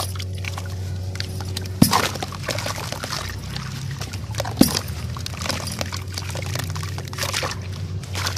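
Wet sand and cement lumps squeezed and crumbled by hand in a tub of muddy water: continual sloshing, dripping and gritty crackling, with two sharper splashes about two seconds and four and a half seconds in. A steady low hum runs underneath.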